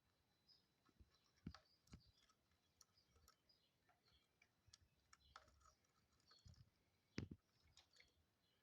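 Near silence broken by faint, scattered clicks and ticks, the clearest about a second and a half, two seconds and seven seconds in.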